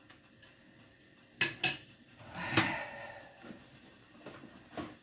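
Kitchen dishes and cutlery clinking: two sharp clicks about a second and a half in, then a louder ringing clink a second later, followed by a few small taps.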